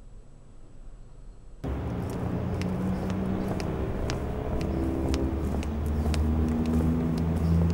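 Faint hiss, then busy street sound cutting in suddenly about a second and a half in: a steady traffic rumble with engine hum, and scattered sharp clicks of footsteps on the pavement.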